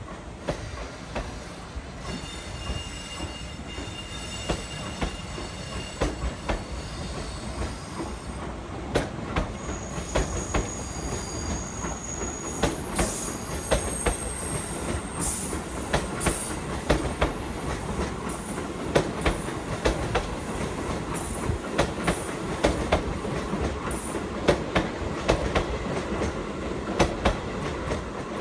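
New Sotetsu 20000 series electric train cars, hauled by a locomotive, rolling slowly past. Their wheels click over the rail joints, the clicks growing more frequent, and thin high squeals come and go during the first half.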